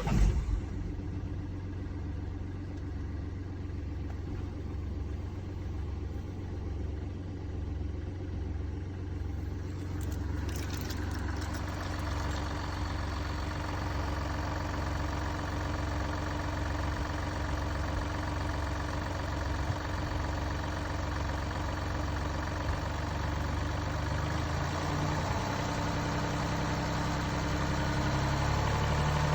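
Mini Cooper D's three-cylinder diesel engine starting and then idling steadily, the idle of a car diagnosed with a broken dual mass flywheel. A hiss joins in about ten seconds in, which the owner puts down to an oil-corroded turbo air intake, and the engine gets slightly louder near the end.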